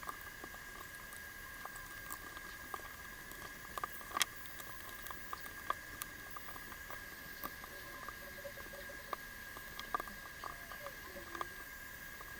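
Faint, scattered small clicks and ticks of hand work on an electronic device's circuit board, with a faint steady high whine underneath.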